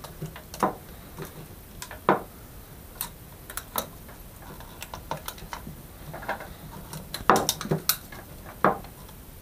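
Irregular light clicks and knocks of a tape measure being held and shifted against ceramic wall tiles, with a quick cluster of sharper clicks about seven seconds in.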